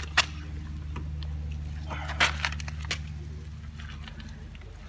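A few sharp clicks and knocks as a new rubber handlebar grip is twisted and pushed onto a motorcycle handlebar, over a steady low hum that fades near the end.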